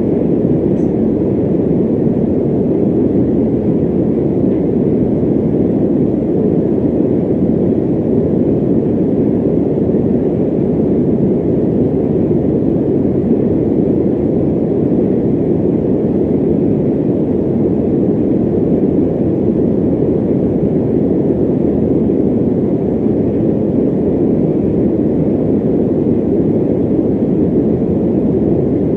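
Electric fan running steadily: an even, low rush of air with little hiss above it and no change in level.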